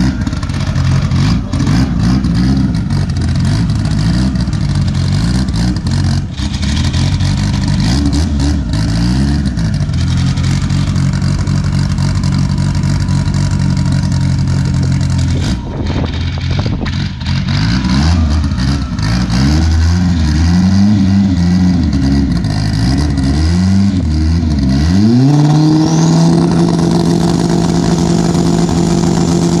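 Drag-racing VW Gol's engine being revved at the start line, rising and falling in repeated blips with a few seconds held steady midway. About 25 seconds in, the revs climb sharply and are held high and steady, ready for launch.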